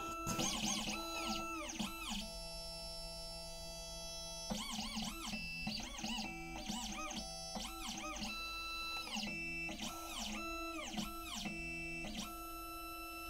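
Instrumental background music: held notes under guitar-like lead notes that bend in pitch.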